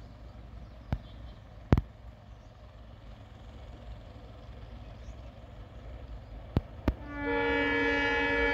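A low background with a few sharp clicks, then about seven seconds in a diesel locomotive's horn starts up, much louder, held as a chord of several steady tones.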